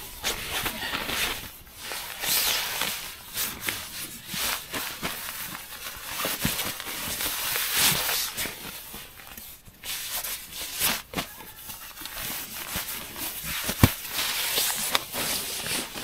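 Rustling and crinkling of nylon down clothing, sleeping pad and tent fabric as someone shifts about and handles gear, with scattered small clicks and knocks.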